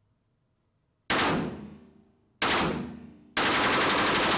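Machine gun firing: two short bursts, each trailing off in a long echo, then a sustained burst of rapid automatic fire starting about three and a half seconds in.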